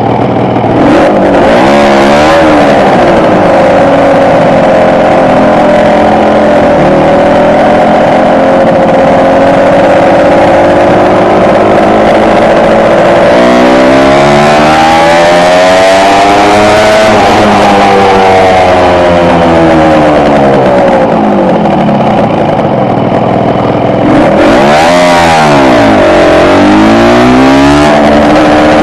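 Kawasaki KR250's two-stroke tandem twin engine running on the move, revving up and dropping back, with a steady high-pitched noise running over it that the rider took for an abnormal noise.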